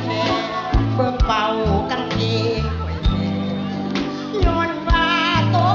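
Singing into a microphone over band accompaniment, with a steady bass line and a regular drum beat.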